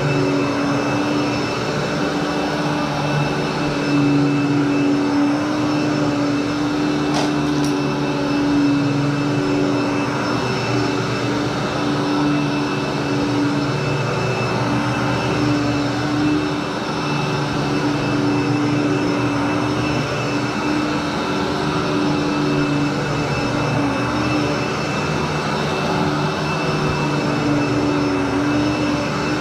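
Commercial upright vacuum cleaner running steadily as it is pushed over carpet for a dry pre-vacuum, a loud motor hum under a high whine, its tone wavering slightly with the strokes. A brief click about seven seconds in.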